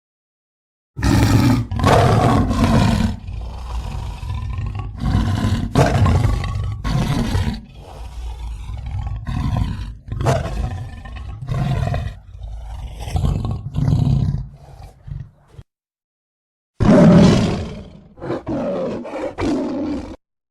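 Tiger roaring and growling in a long run of deep, loud calls, breaking off for about a second near the end before one more loud roar and a few quieter growls.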